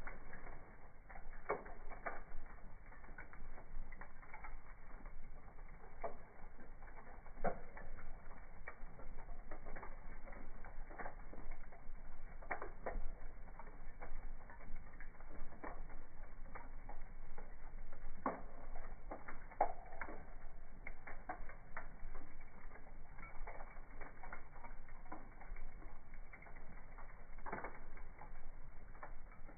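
Fireplace wood fire crackling, slowed down: irregular pops and snaps over a low hiss, with a handful of louder cracks.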